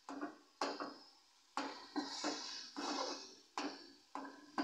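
Steel ladle stirring and mashing boiled potatoes in a steel kadai: irregular knocks and scrapes of metal on metal, each with a short ringing tone.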